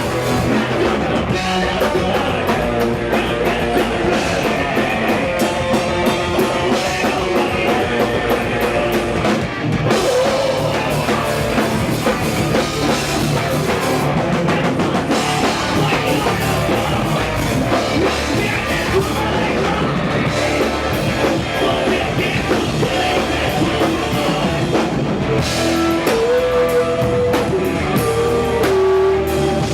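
Rock band music playing: drum kit and guitar in a loud, steady full-band mix.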